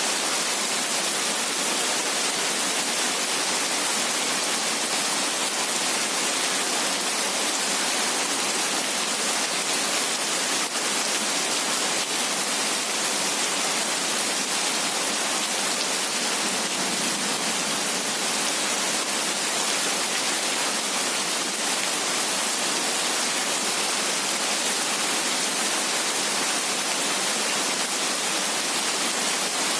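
Heavy rain falling steadily, an even hiss with no thunder or single drops standing out.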